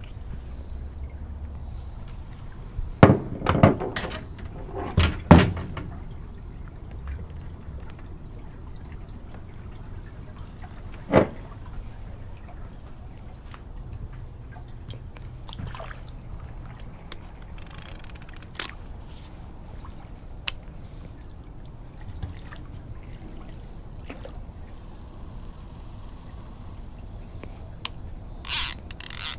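A steady high-pitched insect chorus drones on. Scattered sharp knocks and clicks from fishing rods and tackle being handled on an aluminium dock cut in, with a cluster of knocks a few seconds in and single ones later.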